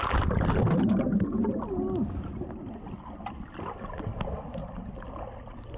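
A splash as the microphone plunges into pool water, then muffled underwater sound, bubbling and gurgling, with the higher sounds cut away.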